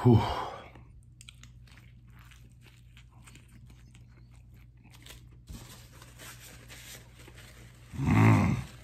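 A man chewing crunchy fried food close to the microphone: a run of small crisp crunches and mouth clicks. A short loud vocal sound comes at the very start and another just before the end.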